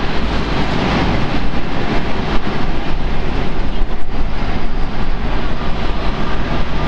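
Boeing 777-200 taxiing, its Rolls-Royce Trent 800 jet engines at low taxi power: a steady jet hiss and rumble.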